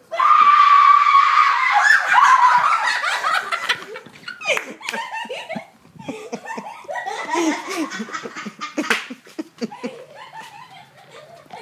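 A sudden, loud, high-pitched scream of fright, held for about two seconds, breaking into bursts of shrieking and laughter, with scattered knocks and scuffs.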